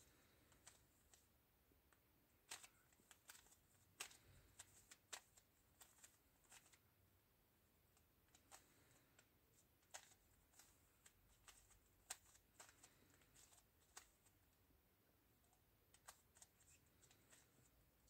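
Faint plastic clicks of a 3x3 speed cube being turned by hand, in irregular runs of quick turns with short pauses between them.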